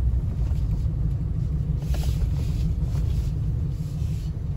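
Car driving slowly over a snow-packed road, heard from inside the cabin: a steady low rumble of engine and tyres, with faint hiss from the tyres in the snow now and then.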